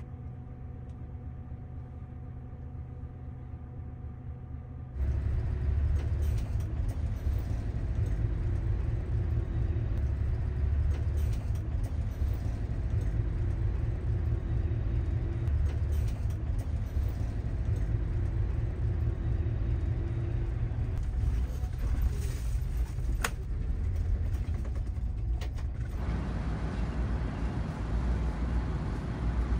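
Diesel route bus heard from inside the cabin, first idling with a steady hum. About five seconds in it gives way to a louder low rumble of engine and road noise as the bus drives. Near the end comes a different, steadier engine sound, fitting the bus idling at its stop.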